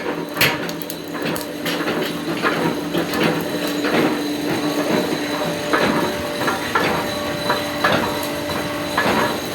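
Hammer blows on metal being forged: a sharp strike about half a second in, then lighter, irregular knocks, over a steady machine hum.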